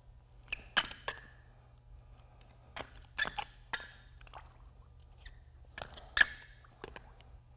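Scattered light clicks and knocks from a plastic bucket and its handle as mixed MMA resin is poured out of it, about six sharp ones spread through, over a low steady hum.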